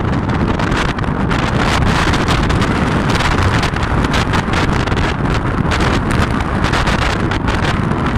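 Wind buffeting the microphone: a loud, steady rumble with rapid crackling flutter and no clear machine tone.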